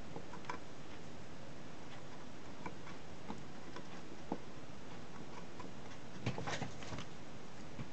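Light scattered ticks and scratches of a swab being rubbed over a circuit board to clean the solder pads, with a short run of scrapes about six to seven seconds in.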